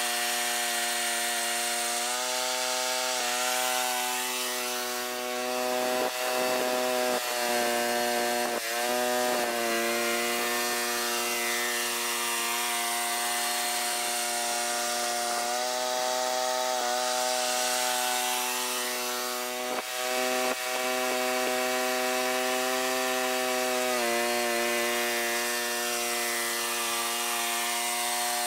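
Allis-Chalmers 410 garden tractor engine running hard, driving a rear-mounted rototiller through soil. The engine's pitch sags briefly a few times as the tilling load comes on, about a fifth of the way in and again past the middle, and recovers each time.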